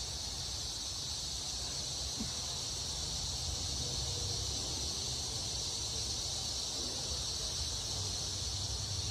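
Steady, high-pitched insect chorus over a low background rumble, with a faint small tick of handling about two seconds in.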